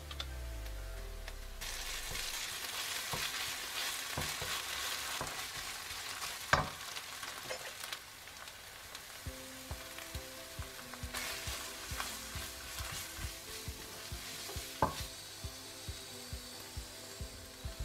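Chopped onions and mustard sizzling in oil in a nonstick frying pan while being stirred, with flour being added for the sauce. A hiss of frying runs throughout, with light clicks of the utensil on the pan and two sharper knocks, one about a third of the way in and one near the end.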